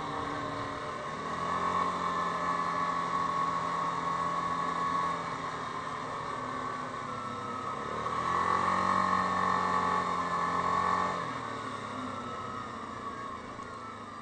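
Yamaha Grizzly 550 quad's single-cylinder four-stroke engine running under way at steady road speed. It eases off around five seconds in, pulls harder again from about the eighth second, and falls away over the last few seconds.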